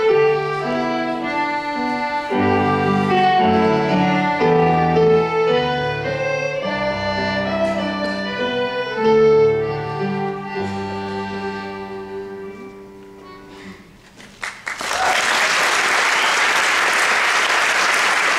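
Ceili band of fiddles with flute, keyboard and accordion playing an Irish traditional tune, which fades on a last held note about 14 seconds in. The audience then breaks into steady applause.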